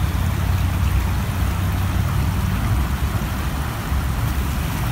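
River water rushing over rocks in shallow rapids: a steady rushing noise with a strong low rumble underneath.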